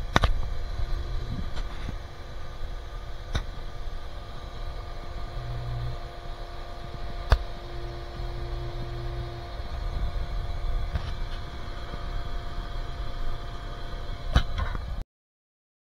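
Hayward pool pump running with a steady hum and low rumble, a few sharp clicks over it. The sound cuts off suddenly near the end.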